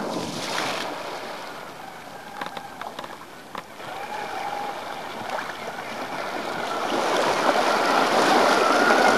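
A heavy radio-controlled four-wheel robot plunges into a pond with a loud splash. Its two electric wheelchair motors then whine as it churns through the water, and the splashing grows louder toward the end.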